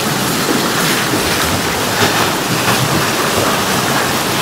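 Shallow stream water rushing steadily over rocks, close to the microphone.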